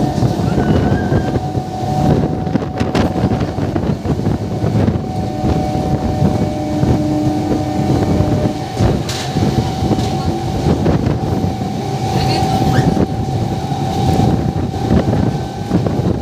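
MEMU electric train running at speed, heard from its open door: a steady loud rumble and rattle of wheels on rail with wind buffeting the microphone, and a steady whine running through it.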